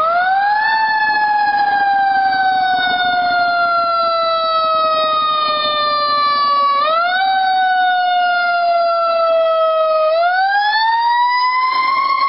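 Fire engine siren wailing: its pitch climbs quickly at the start, sinks slowly for about six seconds, jumps up a little, sinks again, then climbs back up near the end.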